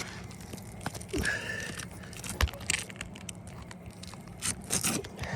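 Asphalt roof shingles being lifted and handled: irregular crunching and scraping with a few sharp cracks.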